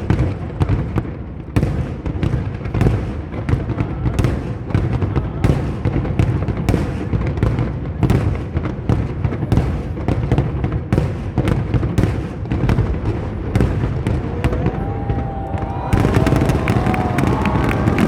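Aerial fireworks display: a rapid, continuous barrage of overlapping bangs and booms. It gets louder and brighter near the end, where some gliding tones join in.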